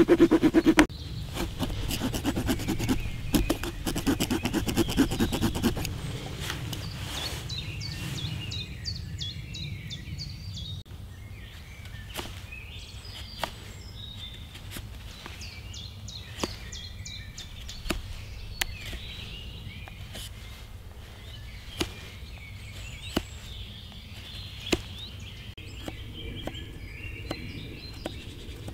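Knife whittling a small wooden spork: the blade shaves and scrapes the wood in short strokes, fast at first and then about one cut a second. Birds chirp in the background.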